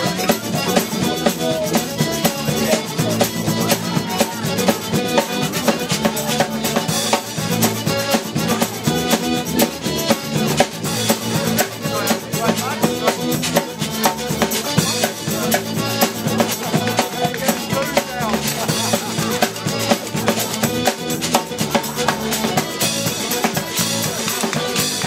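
Live folk band playing an up-tempo tune: tuba bass line, melodeon, electric bass guitar and a drum kit keeping a steady driving beat.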